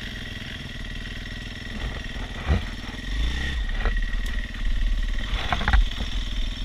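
Dirt bike engines running, with the small dirt bike revving up about three seconds in as it goes at a fallen log, and a few knocks and thuds as the bike goes down on its side.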